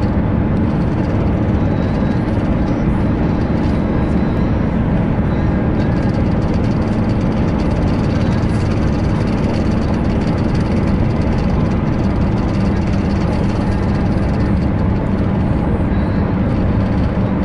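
Steady car interior noise at a motorway cruise of about 130 km/h: the engine humming evenly at around 3,000 rpm under continuous road and wind noise.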